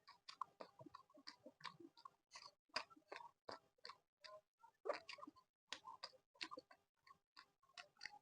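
Close-miked, quiet chewing of laddu peethi, fried lentil fritters eaten with chutney: an irregular run of sharp wet mouth clicks and smacks, several a second.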